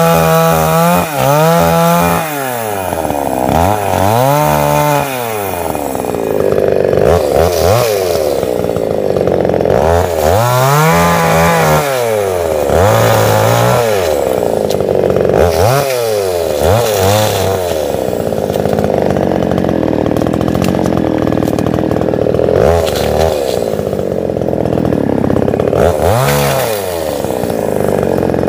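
Two-stroke chainsaw revving up and down again and again, with longer stretches held at high revs as it cuts through a felled tree trunk.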